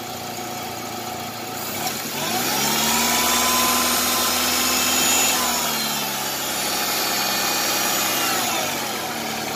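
Chevrolet U-VA engine idling under electronic throttle control. About two seconds in its speed rises and holds, then settles back to a steady idle around six seconds in, as the throttle body adjusts the idle.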